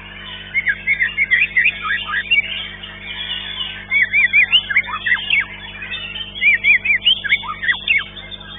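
White-rumped shama (murai batu) singing in bursts of quick, sharp chirps and rapid up-and-down notes, with a lull of a second or two in the middle, over a steady low hum.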